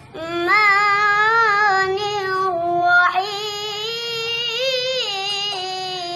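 A high, clear voice chanting in the melodic Quran-recitation (tilawah) style, drawing out long held notes with wavering ornaments.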